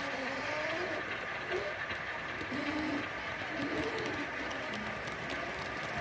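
Model train running along the layout track close by, a steady rolling, whirring noise with faint wavering tones underneath.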